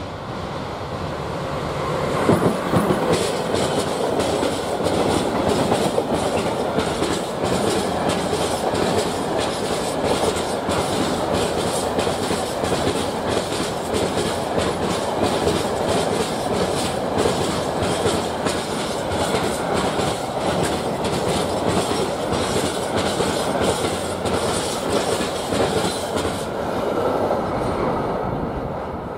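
Freight train hauled by an electric locomotive passing at speed, a long run of wagons with wheels clacking in a steady rhythm over the rail joints. The sound builds over the first couple of seconds and fades near the end as the last wagons go by.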